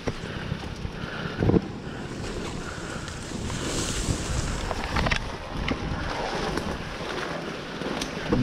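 Steady wind noise on the microphone, a rumbling hiss, with a thump about one and a half seconds in and a few sharp clicks later on.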